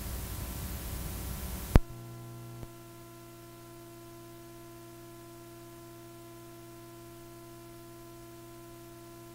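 Steady hiss of a recording's background noise, broken by one sharp click a couple of seconds in. After the click, a quieter steady electrical hum of several fixed tones remains, dropping slightly in level a second later.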